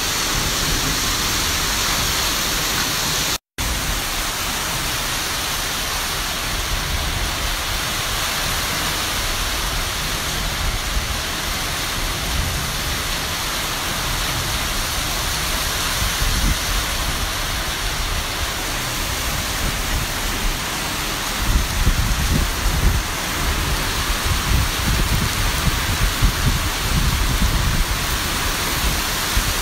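Heavy downpour: a steady, loud hiss of rain, broken off for an instant about three and a half seconds in, with irregular low rumbles through the last third.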